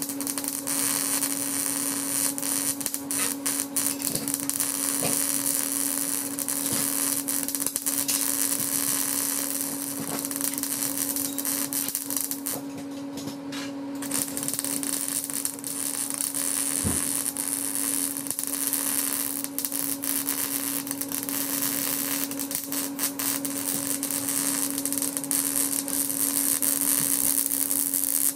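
Electric arc welding angle iron onto the steel tube frame of an old bed headboard: the arc's continuous hissing crackle, which stops for about a second and a half near the middle and then strikes up again, over a steady hum.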